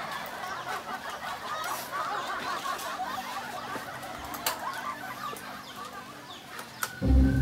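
Chickens clucking, with a busy patter of short calls throughout and a few sharp clicks. Loud music comes in at the very end.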